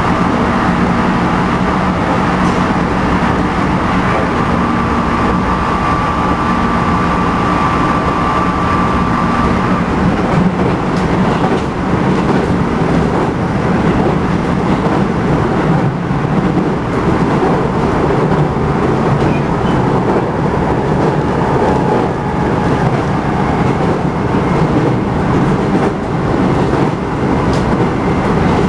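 Running sound of a JR Central 211 series electric train heard inside motor car MoHa 210-5012: the internally fan-cooled MT61 traction motors whine with a strong undulating beat over steady wheel and rail rumble, an abnormal noise peculiar to this car. A thin high tone fades out about ten seconds in.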